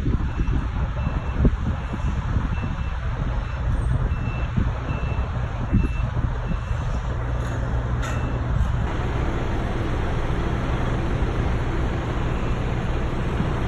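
A vehicle's reversing alarm beeping about twice a second, stopping about eight seconds in, over a steady low rumble.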